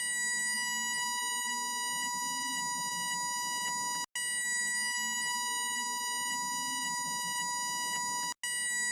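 Railway level crossing warning signal sounding a continuous electronic buzzer tone, one steady high pitch with a harsh, buzzy edge. It is broken by two very short drop-outs, about four seconds in and near the end.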